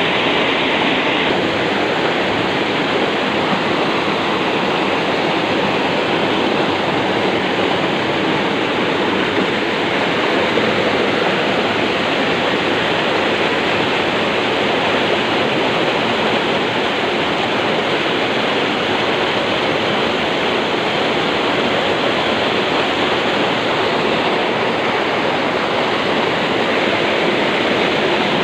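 Water rushing through a sluice gate and over a low concrete weir: a loud, steady rush of churning white water.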